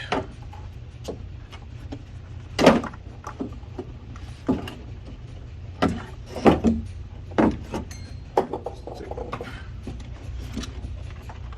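Irregular clicks and knocks of plastic clips and door parts being worked by hand inside a car door, as the wire-harness clips are pried loose, over a steady low hum.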